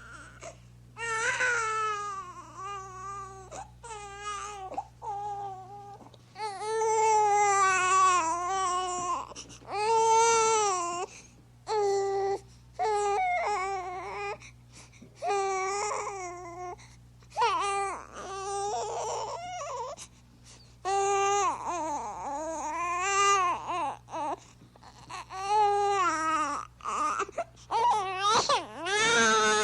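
Infant crying in a run of wailing cries, each a second or two long with a wavering pitch, broken by short gasps for breath.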